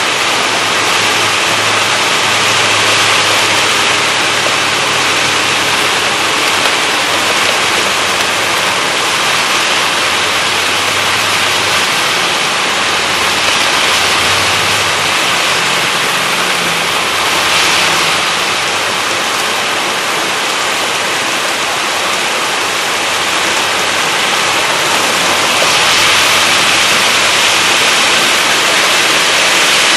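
Heavy downpour with gusty wind: a loud, steady rushing of rain that swells briefly a few times.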